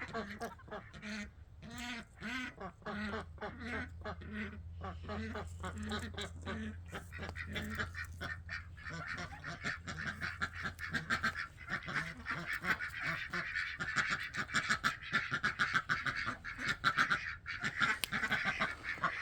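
Ducks calling: a string of short repeated calls that thickens into a dense, continuous chatter in the second half.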